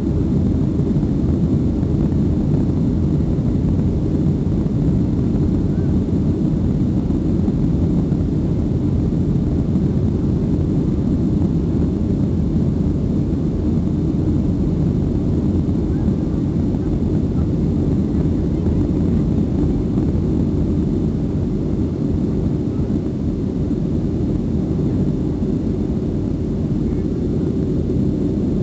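Boeing 737 cabin noise during the climb after takeoff: the steady, low roar of the jet engines and the air rushing past the fuselage, heard from a seat over the wing.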